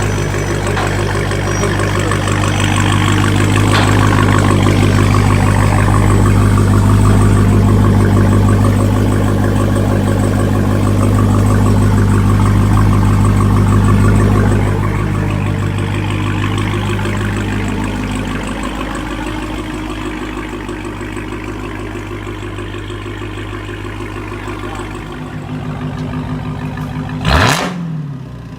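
Dodge Hellcat's supercharged Hemi V8 running with its exhaust resonators deleted: a steady, deep exhaust note, louder for the first half and then settling lower, with one quick rev near the end.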